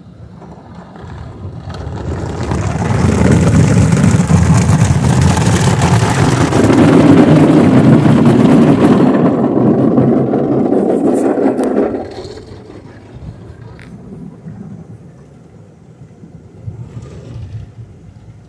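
Automatic tunnel car wash heard from inside the car: a loud rush of water spray and wash equipment working over the roof and windshield. It builds over the first few seconds, stays loud, then drops off sharply about twelve seconds in to a softer wash of noise.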